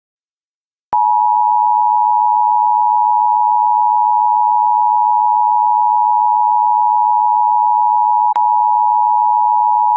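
Emergency Alert System attention signal: a loud, steady two-note tone that starts suddenly about a second in and holds, with one brief click near the end.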